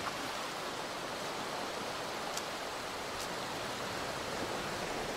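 Steady rushing wash of sea surf against a rocky shore, with two faint ticks about halfway through.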